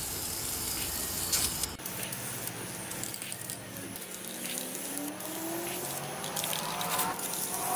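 Aerosol spray paint can hissing as black paint is sprayed in passes, with a brief break in the spray a little under two seconds in.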